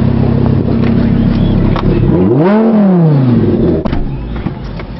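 Audi R8's engine idling steadily, then revved once about two seconds in: the pitch climbs and falls back over about a second before it settles.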